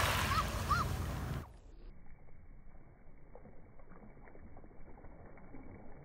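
Small waves washing and splashing onto a pebble shore. About a second and a half in, the sound drops suddenly and turns muffled and faint, leaving soft lapping with light ticks.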